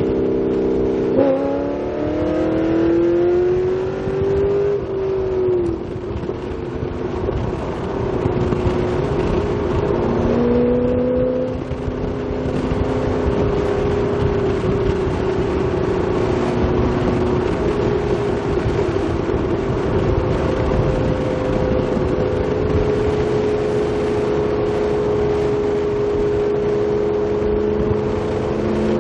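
Corvette Z06 V8 running through an AWE axle-back exhaust, heard from the moving car. Near the start the exhaust note climbs in pitch under acceleration for a few seconds, then settles into a steady cruising drone that shifts slightly in pitch now and then.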